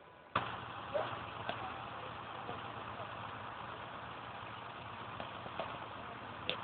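An engine running steadily, with a few sharp clicks and knocks over it; the sound begins abruptly a third of a second in.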